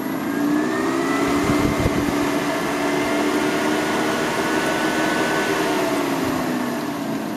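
12-volt car radiator fan in a DC-powered swamp cooler running with a steady hum and whine. Its pitch rises over the first second or two and falls again near the end as its DC variable-speed controller is turned up and then down.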